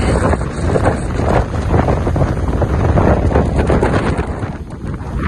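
Storm wind blowing hard against the microphone: loud, gusting noise that eases a little near the end.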